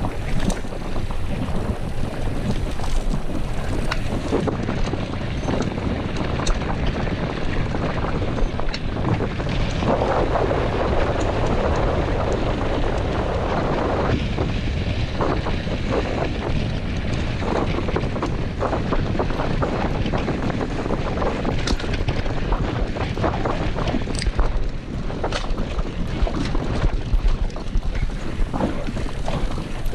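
Wind rushing over the microphone as a mountain bike rolls fast over a dirt road, with tyre noise on the loose surface and frequent small rattles and clicks from the bike.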